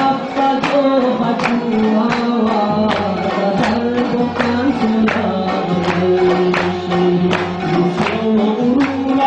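A man singing a folk song into a microphone in long held notes, with a hand drum keeping a steady beat.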